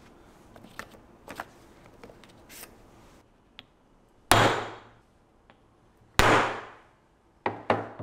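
Hammer striking steel letter stamps into a cast aluminium ingot. Light clinks of the stamps being handled come first, then four sharp blows, each ringing briefly: two single strikes about two seconds apart and a quick pair near the end.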